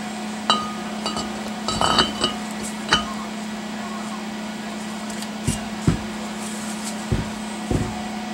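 Metal clinks and light knocks of a cast-iron brake rotor being test-fitted over a wheel hub and its lug studs, then set down on the bench. Several sharp clinks come in the first few seconds and a few duller knocks later.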